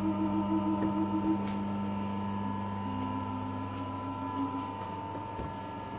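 Steady electrical hum of workshop machinery: a low mains-type drone with a couple of fainter higher whines above it, and a few light handling clicks.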